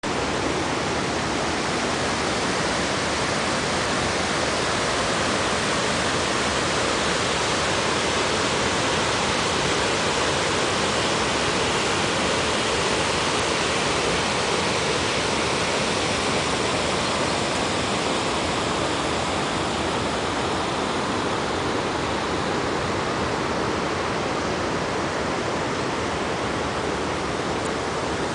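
Water pouring over a small river waterfall, a steady rushing noise that hardly changes.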